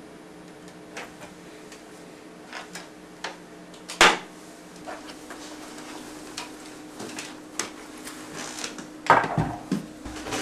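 Handling noises as a full-face motorcycle helmet is pulled off and set down on a wooden desk: scattered clicks and knocks, a sharp knock about four seconds in, and a cluster of louder knocks near the end as the helmet meets the desk. A steady low hum runs underneath.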